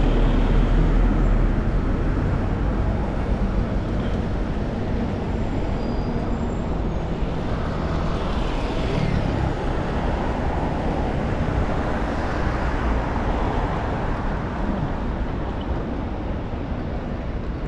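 Busy city road traffic: cars and buses passing in a steady rumble, with one vehicle going by more loudly about halfway through.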